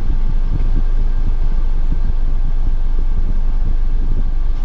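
Steady low rumble of a 1993 Honda Acty kei truck's 660cc engine and running gear, heard from inside the cab while it is being driven.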